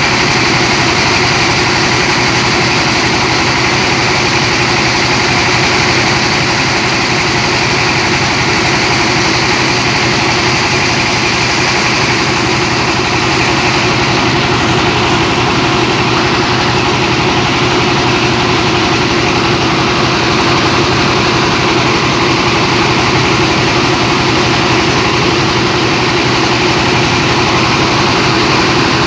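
Rice milling machine driven by a Dongfeng 24 HP single-cylinder diesel engine, running steadily with a constant engine tone under the dense whir of the mill.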